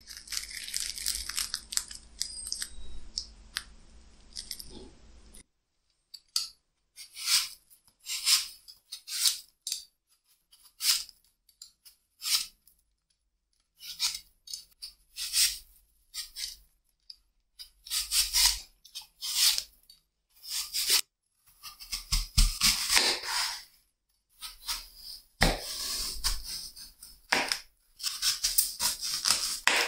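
Crisp, crumb-coated fried bread pocket pies being pulled apart, crackling and tearing for the first few seconds. Then a Y-peeler scraping the skin off an apple in short strokes, about one a second. Near the end a knife cuts through the peeled apple onto a wooden chopping board, with dull thuds.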